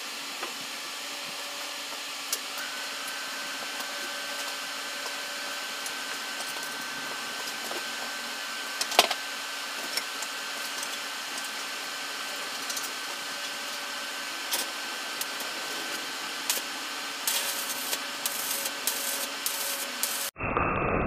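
Electric arc welding on a steel frame: a steady sizzling hiss with scattered sharp crackles, cut off abruptly just before the end.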